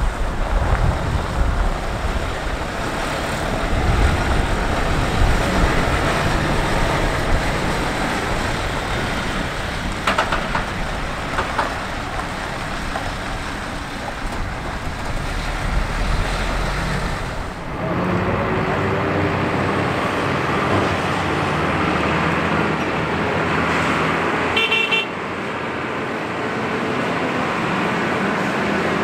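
Diesel engines of Japanese medium-duty trucks: one truck pulls away and drives off along a road, then a second truck runs at low speed. A short horn toot sounds near the end.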